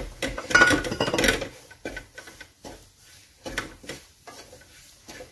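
Spatula stirring and scraping a dry, crumbly flour-and-nut mixture against the inside of a metal kadai. There is a loud stretch of dense scraping in the first second and a half, then lighter, irregular scrapes and taps.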